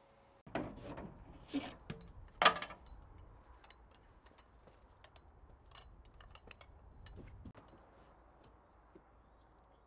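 Plywood sheets being handled: a few sharp wooden knocks and clatters in the first three seconds, the loudest about two and a half seconds in, then scattered light taps and rattles as a sheet is lifted and stood against the wall framing.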